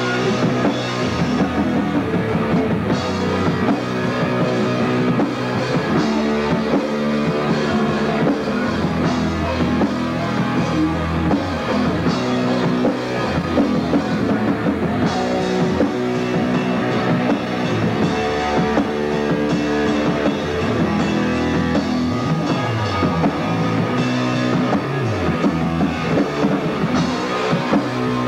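Punk rock band playing live in a rehearsal room: distorted electric guitar and drum kit playing steadily.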